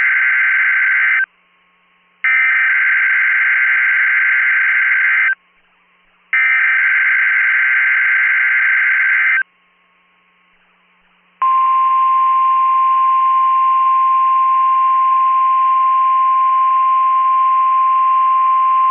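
Emergency Alert System SAME header tones on NOAA Weather Radio: the end of one harsh, buzzing digital data burst and then two more, each about three seconds long with about a second of silence between them. About eleven seconds in comes the 1050 Hz NOAA Weather Radio warning alarm tone, one steady high tone that marks an alert about to be read.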